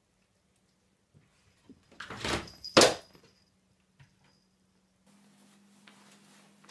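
A cat jumps down from the top of an open door: a short rattle of the door, then one sharp thud about three seconds in as it lands.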